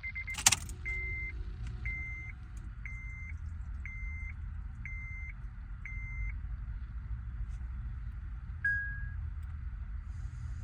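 A sharp click, then a car's warning chime beeping six times, about once a second, then one shorter, lower beep, over a steady low rumble.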